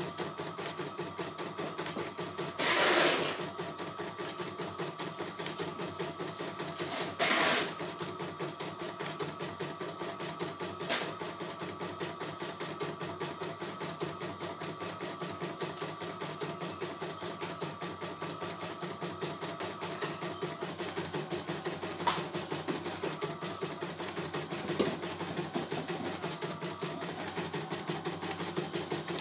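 CNY E900 computerised embroidery machine stitching steadily, its needle going in a fast, even rhythm. Two brief louder bursts of noise come a few seconds apart, and a few sharp clicks come later.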